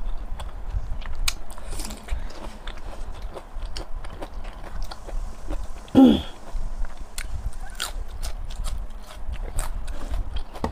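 A woman chewing rice and pork with many wet clicks and lip smacks, picked up close on a clip-on microphone. About six seconds in, a short voice sound falls in pitch.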